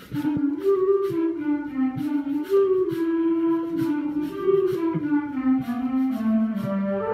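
Euphonium playing a slow solo melody, one held note after another, the line sinking lower near the end.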